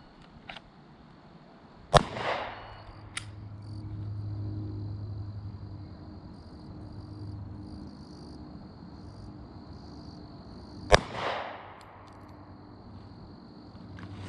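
Two single pistol shots from a Glock 27 .40 S&W handgun, about nine seconds apart, each sharp crack followed by a short echo.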